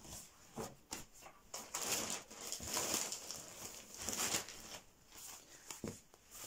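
Clothes being handled and laid out: soft rustling and swishing of fabric, including faux-leather leggings, in several short strokes, the strongest about two, three and four seconds in.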